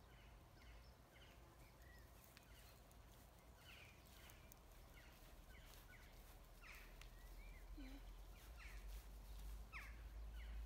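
Quiet garden ambience with faint, scattered bird chirps, and a low rumble building up near the end.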